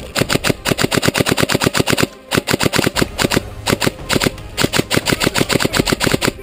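Systema PTW airsoft electric rifle firing full-auto in several bursts, a rapid mechanical clatter with short breaks between bursts. It is heard close up through a camera mounted on the rifle's scope.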